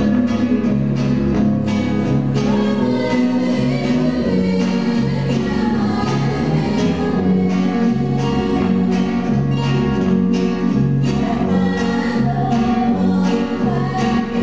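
Live Christian worship song: two women singing into microphones over strummed acoustic guitars and an electric bass guitar keeping steady bass notes.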